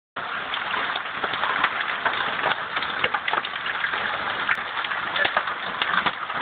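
Hailstorm: hailstones pelting down in a dense, steady clatter of many small impacts, with sharper individual strikes scattered throughout.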